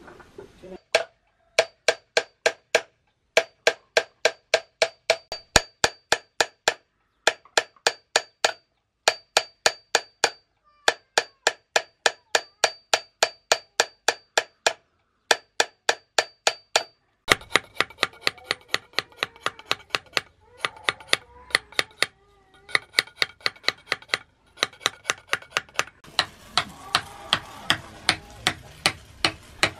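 Hand hammer striking steel on an anvil while a knife blade is forged: runs of quick, even blows about three a second, broken by short pauses, each blow ringing.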